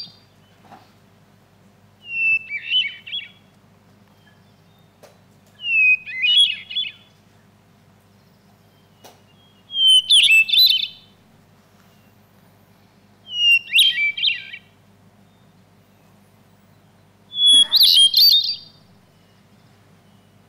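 Hermit thrush singing, a recording played through a hall's loudspeakers: five short songs of about a second each, with a pause of two to three seconds between them. Each song opens with a long held whistle and then runs into quicker notes and trills, the opening whistle pitched higher on some songs and lower on others.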